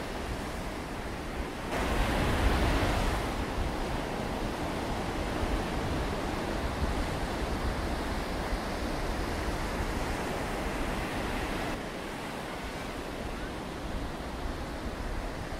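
Sea surf washing on the beach, with wind buffeting the microphone and adding a low rumble. About two seconds in, the sound swells louder for a second or so.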